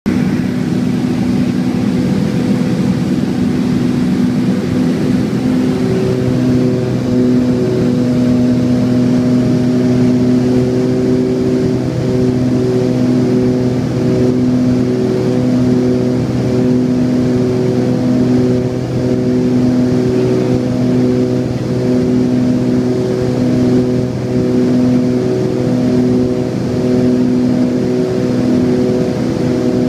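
Twin piston engines and propellers of a Beechcraft 58 Baron heard from inside the cabin: a steady drone that pulses in and out about every second and a half, the beat of two engines turning at slightly different speeds. About six seconds in the tone settles into clearer, steadier lines.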